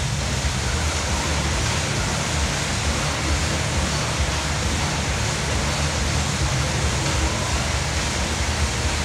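Air bike's fan whooshing steadily as it is pedalled and pushed hard.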